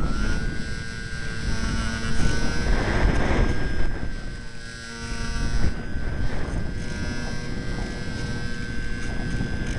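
Strong wind buffeting the microphone, with a steady high-pitched whine that rises slightly at the start and then holds its pitch.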